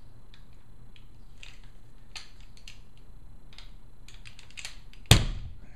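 A handgun being loaded through a feeding malfunction: scattered light metallic clicks and rattles of handling, then one sharp, loud metal clack about five seconds in.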